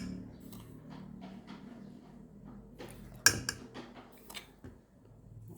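A metal spoon clinking and scraping as spoonfuls of sugar are scooped and tipped into a saucepan of milk: light scattered clicks, with one sharp clink about three seconds in, over a low steady hum.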